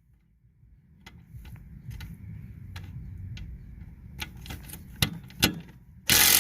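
Clicking and knocking of tools and mower parts being handled, over a low rumble, with two sharper knocks; near the end, a short loud burst from an impact wrench running down a lawn mower engine's mounting bolts.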